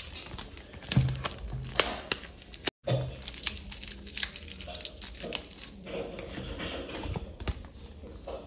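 Plastic sealing tape crumpled between the fingers and a card envelope handled: a run of crinkles and small crackles, broken by a brief gap of silence a little under three seconds in.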